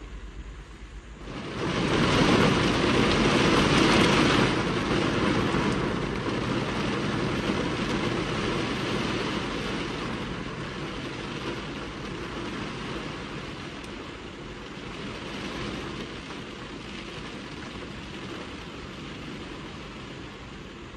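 Wind-driven rain on a car windscreen, heard from inside the car. A sudden heavy gust of rain strikes the glass about a second and a half in and stays loudest for a few seconds. It then slowly eases to a steadier patter.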